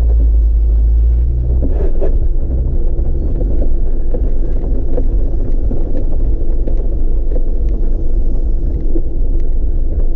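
A Jeep driving slowly over a rocky gravel trail: its engine runs with a steady low rumble, with scattered small clicks of stones under the tyres.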